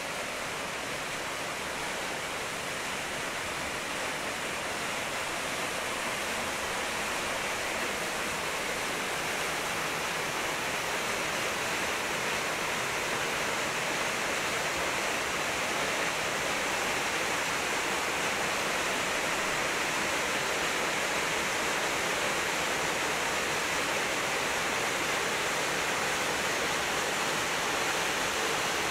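Waterfall: a steady rush of falling water that grows gradually louder.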